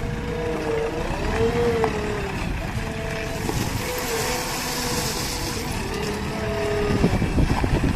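Diesel engine of a JCB 3DX backhoe loader running, its pitch dipping and rising several times as the load changes. Rougher low rumbling joins it near the end.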